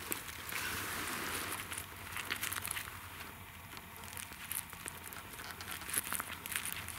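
Footsteps crunching and rustling through dry fallen leaves, giving way after about two seconds to scattered light crackles and rustles of leaves and gloved hands.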